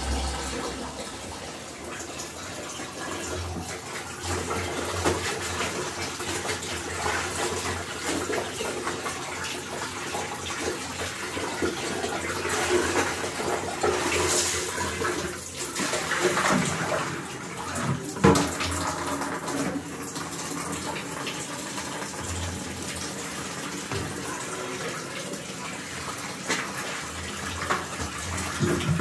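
Water splashing and sloshing in a plastic bucket as a garment is washed by hand and lifted out dripping, in irregular surges.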